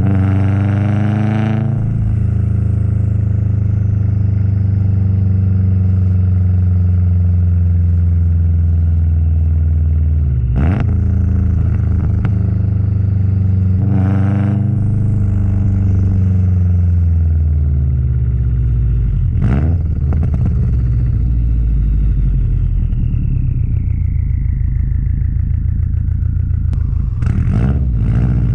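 Subaru WRX STi's turbocharged flat-four engine and exhaust pulling hard through the gears, its note rising, breaking at each shift and rising again, with short bursts of turbo flutter when the throttle closes at the shifts. About halfway through the revs fall slowly for several seconds as the car coasts, before picking up again.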